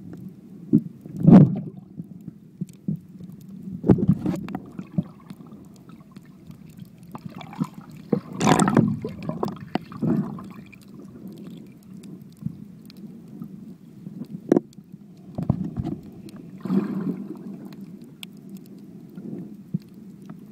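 Underwater sound picked up by a phone sealed in a waterproof case: a steady muffled low rumble of moving water, broken by irregular knocks and thumps of the case being handled. The loudest knocks come about eight to nine seconds in.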